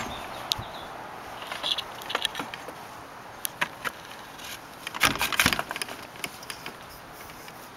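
Light clicks and rattles of the kayak sail kit's metal mast and boom fittings being handled at the mast collar, with a denser clatter about five seconds in.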